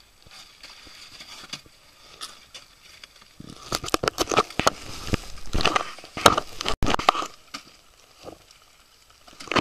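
Rescuers' immersion suits rustling and plastic rescue sleds scraping and knocking on ice, a dense run of scrapes and clicks from about three and a half seconds in to about seven and a half seconds in.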